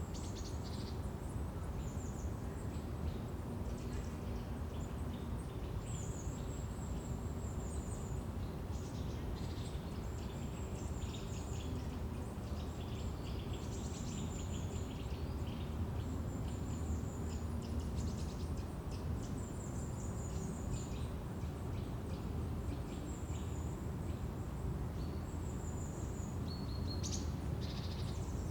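Forest ambience: many birds chirping and trilling on and off, high-pitched, over a steady low background rumble.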